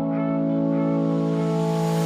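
Background music holding one long sustained note or chord.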